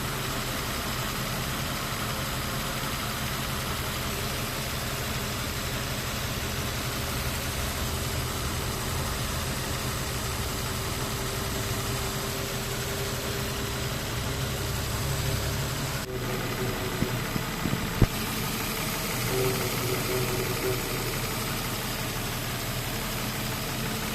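2005 Nissan Xterra's 4.0-litre V6 idling, with a thin howling whine from the engine bay that comes and goes over the steady engine hum; its cause is unknown to the owner. A sharp click about 18 seconds in.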